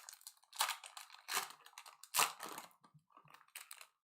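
Foil wrapper of a trading-card pack being torn open and handled: a run of irregular crinkling, tearing noises.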